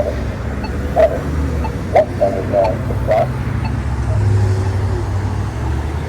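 Polara iNS2 accessible pedestrian push button sounding short ticks about once a second, with steady road traffic running and a vehicle passing about four seconds in.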